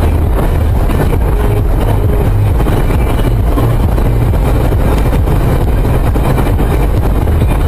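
Steady road and wind noise inside a car cruising at about 130 km/h, picked up by a windscreen-mounted dashcam: an even rumble of tyres and engine with a hiss over it, no sudden sounds.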